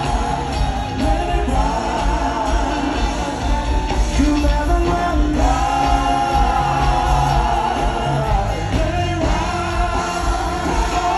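Soul music with singing voices over a band, a strong, steady bass line underneath.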